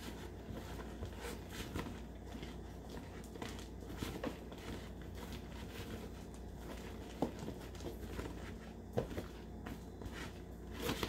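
A hand squishing and kneading a sticky slime mix of glue, shaving cream and liquid detergent in a bowl: faint, irregular wet clicks and squelches, with a sharper tick about 7 and 9 seconds in.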